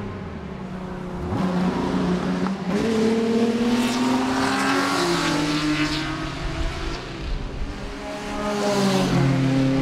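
Vintage production sports racing cars under 2 litres passing at speed, several at once. Their engines rev, and the pitch rises and falls as each car goes by, the sound swelling twice.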